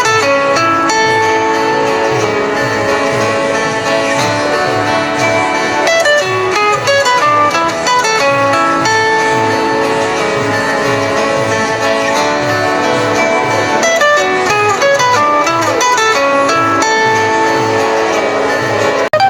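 A Nokia 5130 XpressMusic ringtone playing: a guitar-like plucked melody over a steady, evenly repeating bass pulse. It cuts off abruptly just before the end.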